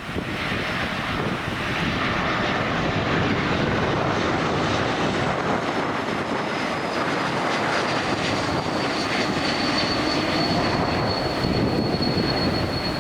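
Jet airliner on approach to land, its engines giving a steady roar. From about halfway a high whine slowly falls in pitch as it passes.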